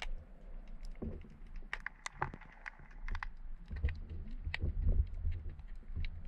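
Underwater ambience picked up by a camera: scattered sharp clicks at irregular times over a low, muffled rumble of moving water, the rumble swelling from about four seconds in.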